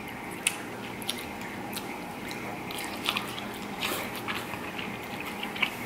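Close-miked chewing of king crab meat coated in sauce, with wet mouth sounds and sharp clicks scattered through.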